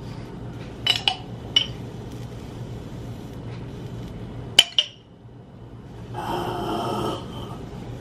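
Metal spoon clinking and scraping against a glass pizza-sauce jar as sauce is scooped out: a few sharp clinks with a short ring, the loudest about four and a half seconds in. A breathy noise follows about six seconds in, over a steady low hum.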